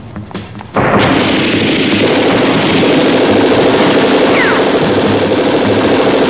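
A long burst of automatic gunfire from film sound effects, starting suddenly about a second in and going on without a break.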